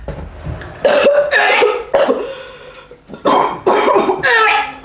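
A person coughing and gagging in two harsh bouts while forcing down a cup of mixed gross sodas, a reaction to the nauseating drink.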